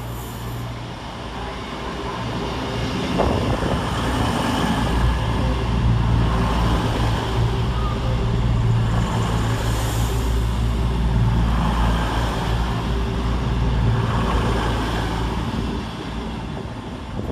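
Class 221 Super Voyager diesel-electric train passing through the station without stopping: its underfloor diesel engines hum low and steady over the noise of the wheels on the rails. The sound builds over the first few seconds, stays loud through the middle, and eases off near the end.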